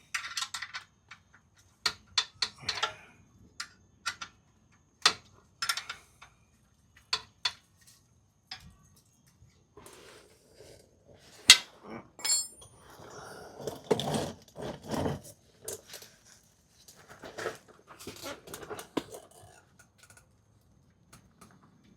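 Scattered metallic clicks and clinks of a 14 mm wrench working the oil drain plug on a Nissan Murano's oil pan, with stretches of scraping and shuffling about halfway through.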